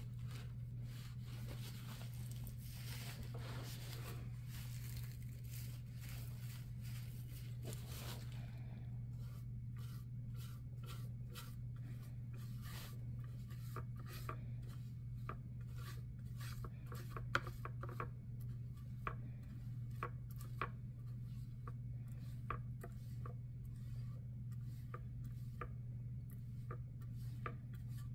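Flat paintbrush stroking and scrubbing acrylic paint onto a primed board plaque: the bristles scratch the surface, first in a continuous scrubbing, then in many short strokes, a few sharper ones near the middle. A steady low hum runs underneath.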